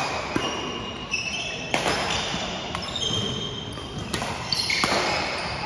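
Badminton rackets striking a shuttlecock in a rally, sharp cracks a second or two apart, with short high squeaks of sneakers on a hardwood gym floor.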